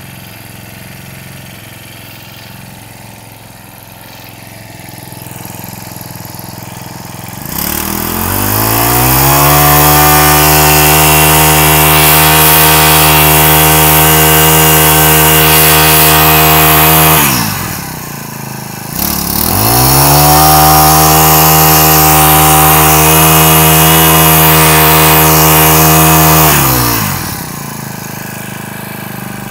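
Honda GX22 22cc four-stroke brushcutter engine idling, then revved to full throttle twice, each time held for about eight seconds before dropping back to idle. It runs very smoothly.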